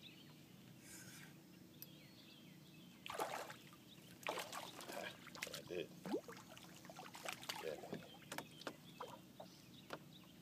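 Hooked smallmouth bass splashing and thrashing at the surface beside the boat as it is reeled in and landed, in short irregular bursts from about three seconds in.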